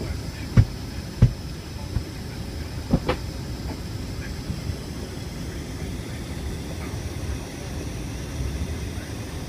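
Cabin noise inside a Boeing 747-400 moving slowly on the ground: a steady low rumble with a faint high whine. Three sharp thumps come in the first three seconds, the first two a little over half a second apart.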